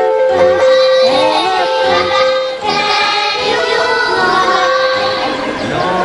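A children's song: a child's voice singing in English over a backing track with held instrumental notes and a steady beat.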